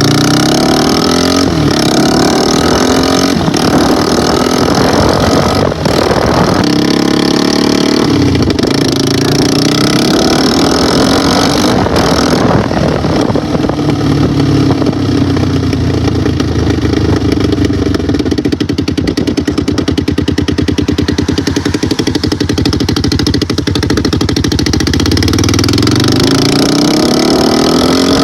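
Motorcycle engine being ridden, its revs rising and dropping back several times as the rider shifts through the gears.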